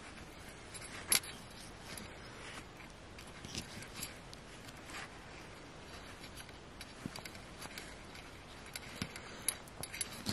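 Fingernails scratching and picking at a wet, crumbling dig-kit rock, flaking bits off its softened crust: soft scraping with scattered sharp clicks, the sharpest about a second in.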